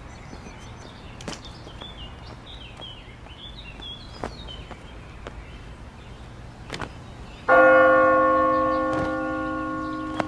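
A bell is struck once about seven and a half seconds in and rings on, slowly fading. Before it there are scattered footsteps and faint bird chirps.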